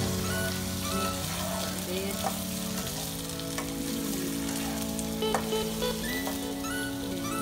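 Shell-on shrimp sizzling as they fry in melted butter and garlic in a non-stick pan, with a spatula stirring and scraping them around now and then. Background music with held chords that change every few seconds plays underneath.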